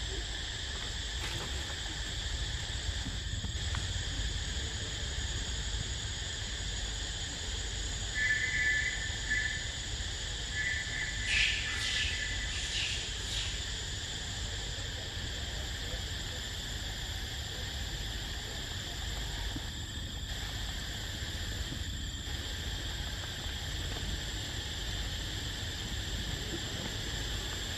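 Steady, high insect chorus of a forest canopy, with a few brief high chirping calls about a third of the way through, over a low rumble.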